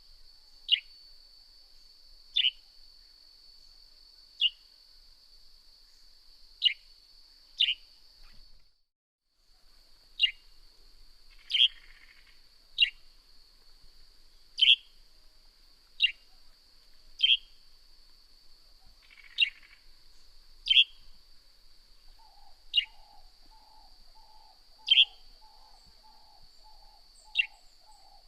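Northern grey-headed sparrow giving single short chirps, each dropping in pitch, about one every one to two seconds, over a steady faint high whine. From about two-thirds of the way through, a rapid low pulsing sound joins in.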